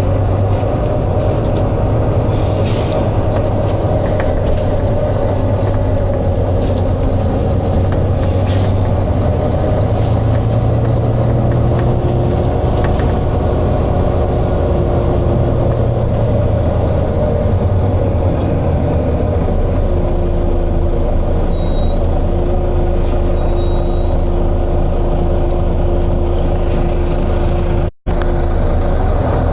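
A Volvo B9TL double-decker bus's diesel engine running steadily, with short air hisses from its pneumatic brake system. The sound cuts out for an instant near the end.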